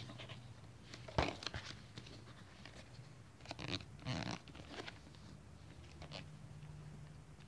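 Plastic DVD cases being handled and opened: a sharp click about a second in, a few lighter clicks, and a short burst of plastic clatter and rustling around the middle, over a faint low hum.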